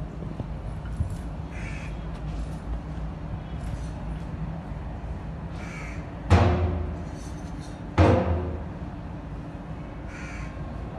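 Crows cawing: a few faint calls, and two loud harsh ones about six and eight seconds in, over a steady low hum.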